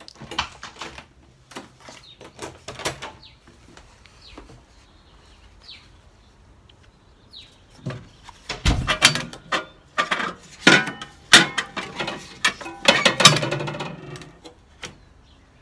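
Clicks, knocks and clatter of a door and a wall-mounted metal mailbox being opened and handled, with a dull thump about nine seconds in. The clatter is loudest and densest in the second half.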